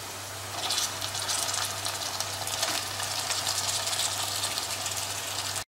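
Pieces of raw goat meat sizzling as they are dropped into hot ghee and fried onions; the crackle rises about half a second in and keeps going steadily.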